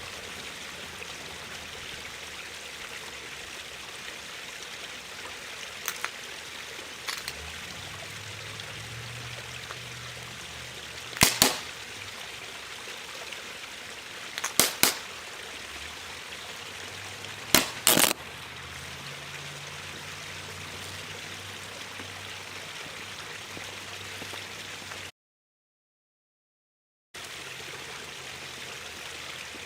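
Gasoline-soaked power inverter burning with a steady hiss, as it is shorted across 120-volt mains. Sharp pops and bangs from its components bursting break through: a few small ones, then loud cracks about eleven, fifteen and eighteen seconds in, some coming in quick pairs. The sound cuts out entirely for about two seconds near the end.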